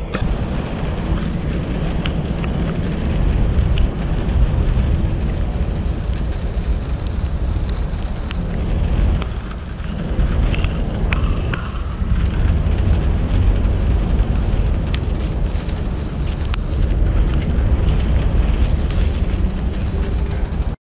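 Rain and wind on the camera microphone: a loud, steady rushing rumble with scattered light ticks.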